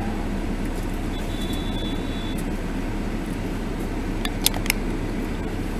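Steady low hum of a stationary car's idling engine heard from inside the cabin, with a thin high whistle for about a second and a few sharp clicks near the end.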